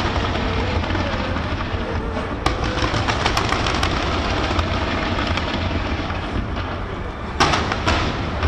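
Fireworks display: dense crackling and popping over a steady low rumble, with a couple of louder bangs about seven and a half seconds in.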